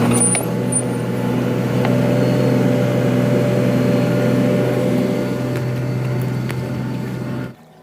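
Excavator's diesel engine running steadily at an even pitch, cutting off abruptly near the end.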